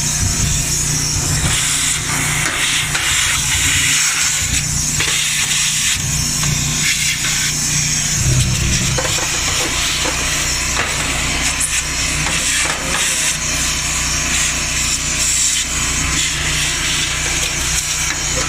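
Shop vac running steadily, sucking dust out of a dryer cabinet, over the constant low hum of a portable generator engine.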